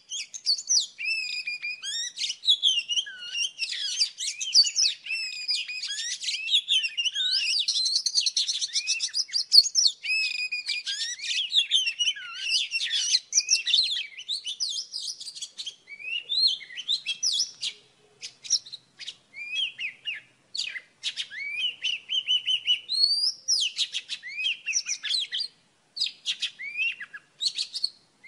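Oriental magpie-robin song: a dense run of varied clear whistles, chirps and trills, breaking into shorter phrases with brief pauses in the second half.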